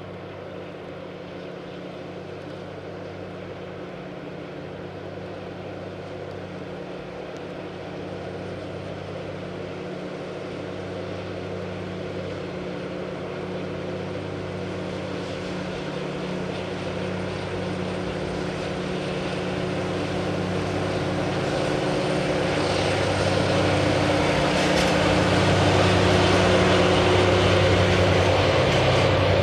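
DD51 diesel-hydraulic locomotive's engines running with a steady drone as it hauls a container freight train, growing steadily louder as it approaches. In the last few seconds, the rumble and rattle of wheels and container wagons rolling past joins in.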